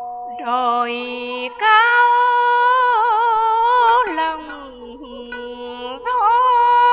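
A woman sings long, wavering held notes in Vietnamese, in phrases, over an instrumental backing with steady sustained notes. The singing breaks off about four seconds in and comes back about two seconds later.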